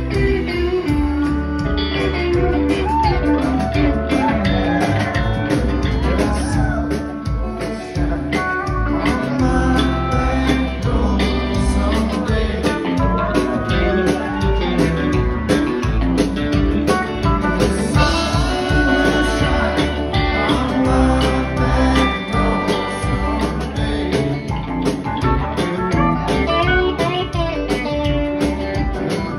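Live band playing a jam: electric guitars playing bending lead lines over upright bass and drums, with no break in the music.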